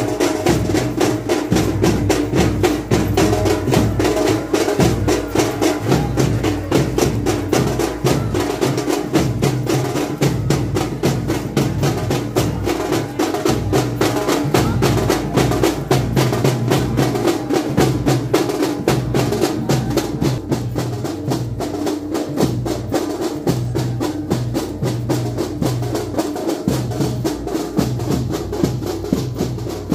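Group of tasha drums beaten with sticks in a fast, dense, unbroken rhythm for a Muharram procession.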